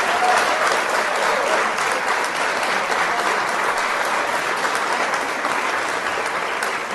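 A group of people clapping steadily, applause congratulating an angler on landing a big fish.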